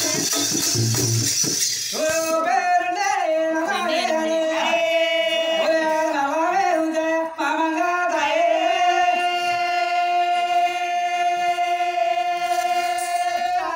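Music with a shaker rhythm cuts off about two seconds in. Then a single high voice wavers up and down for several seconds and holds one long steady note until near the end.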